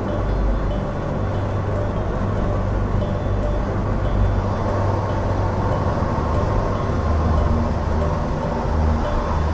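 A car driving: steady engine and road noise with a strong low rumble.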